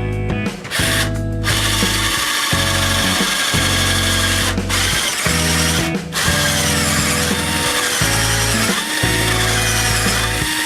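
Power drill running in repeated bursts of a second or two, driving screws into a wooden door jamb, with blues background music playing.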